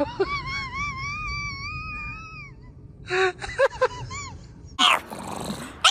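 Cat yowling: one long, wavering, high-pitched wail, followed by a few shorter cries and a brief noisy burst near the end.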